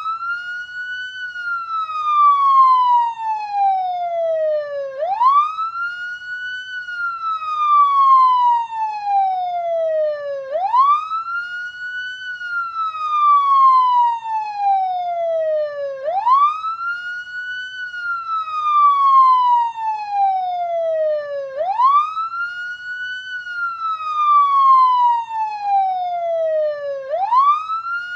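Police siren sounding a slow wail: each cycle sweeps quickly up in pitch, then falls slowly over about four seconds, repeating about every five and a half seconds.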